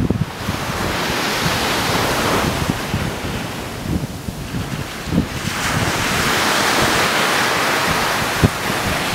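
Surf washing onto a sandy beach, its hiss swelling twice, the second time louder, with wind buffeting the microphone.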